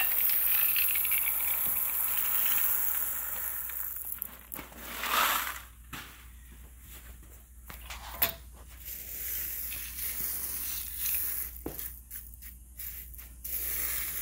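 Gravel pouring from a plastic five-gallon bucket, a steady noisy pour that stops about four to five seconds in. After that, scattered clicks and scrapes of the gravel being pushed around by a gloved hand.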